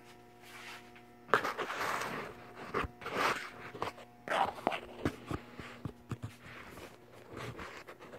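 Footsteps and handling noise of a phone being carried while walking: irregular scuffs, rustles and small knocks, over a steady faint electrical hum.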